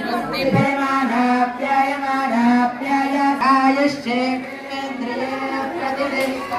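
A group of voices chanting a devotional mantra in unison, holding long notes and stepping between a few pitches.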